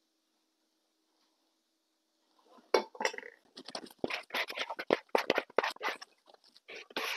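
Quiet at first. About two and a half seconds in, a plastic dough scraper starts scraping and knocking against the mixing bowl, working sticky dough loose in a quick, irregular run of scrapes and clicks.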